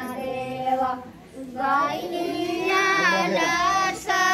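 High-pitched voices singing a Bhojpuri folk song in long, held notes that bend at their ends, with a short pause about a second in before the singing resumes.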